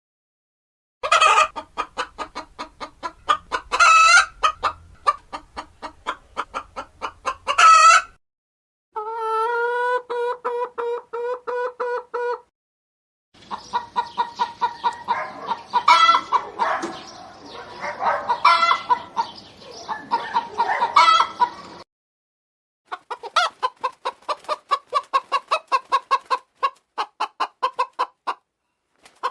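Domestic hens clucking in several separate recordings with short silences between them: rapid clucks broken by louder drawn-out cackles, then a steady pitched pulsing call, a noisier stretch of clucking, and finally an even run of quick clucks.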